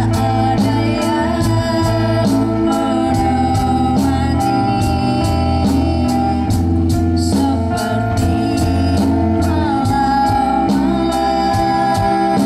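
Live pop-rock band playing through a PA: a drum kit keeps a steady beat under electric guitars, bass and electronic organ, with a girl singing.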